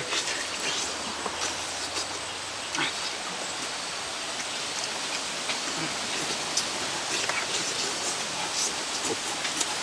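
A person eating roasted bird meat: a few short wet smacks and clicks of biting and chewing over a steady hiss of background noise.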